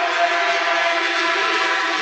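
A pack of racing motorcycles at high revs, many engine notes overlapping into a steady drone.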